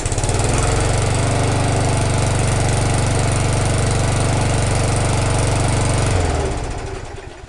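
1994 Briggs & Stratton 3.5 hp Classic push mower's single-cylinder engine running steadily right after a primed cold start. About six seconds in it slows and dies away.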